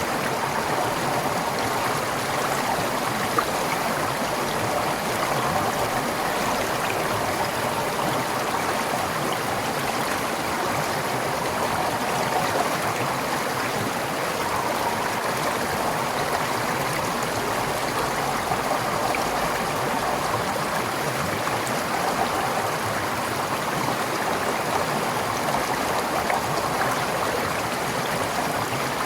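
Forest stream flowing steadily over rocks, a continuous rushing with gurgling and trickling.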